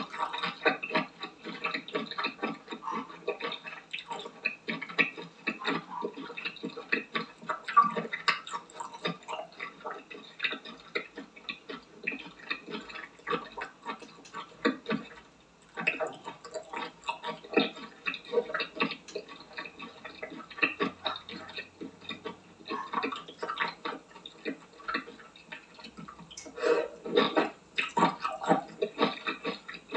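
Wet chewing and sucking of raw octopus: a dense run of small sticky clicks and smacks, with a short lull about fifteen seconds in and a louder stretch near the end.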